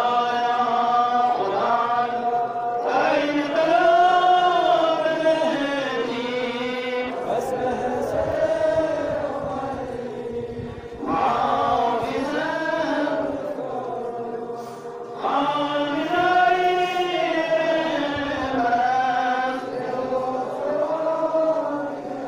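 Men's voices chanting a Muharram lament (nauha) in long sung phrases, with short breaks between them.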